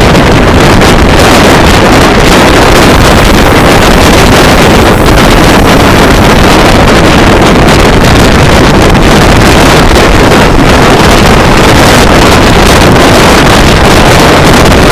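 Loud, steady rush of wind buffeting the microphone at an open window of a moving passenger train, mixed with the running noise of the train on the rails.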